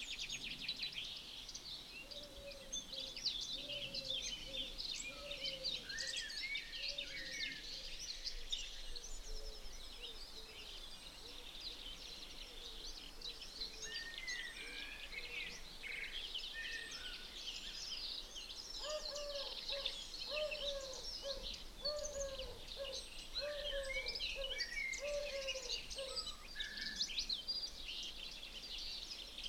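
A chorus of songbirds, several singing at once with high chirps and trills. Twice, a lower call runs alongside them as a series of short repeated notes.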